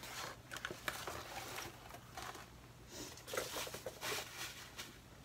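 Clear plastic packaging rustling and crinkling, with scattered light clicks and taps as a cardboard box and the small items in it are handled.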